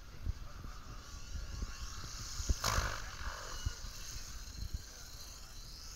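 Wind buffeting the microphone over the whine and rotor noise of an RC helicopter flying aerobatics, with a short loud swell about two and a half seconds in.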